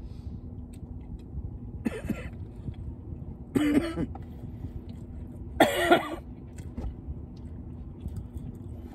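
A person coughing and clearing their throat in three short bouts, about two, three and a half and five and a half seconds in, the second and third the loudest, a reaction to the burn of a very spicy jalapeño sandwich.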